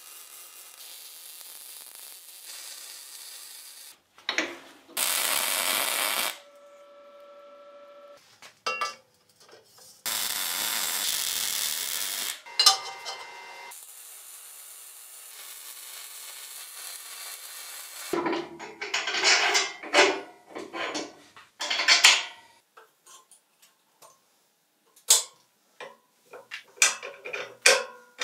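Workshop tool sounds in short cut-together clips: several bursts of steady hiss, a brief steady whine about seven seconds in, then a run of sharp metal knocks and clanks near the end.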